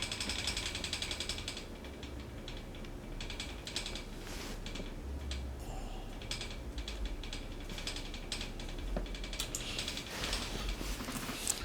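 Rapid ratcheting clicks at the start and again near the end, with scattered metal clicks and handling between, from hand work on a wheelchair wheel hub.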